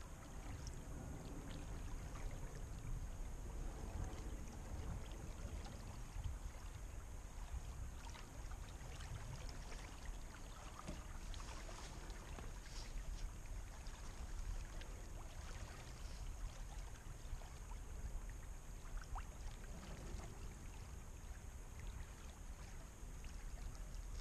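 Water lapping and trickling softly along the hull of a Neptun 22 sailboat drifting in very light wind, over a low, steady rumble of wind on the microphone.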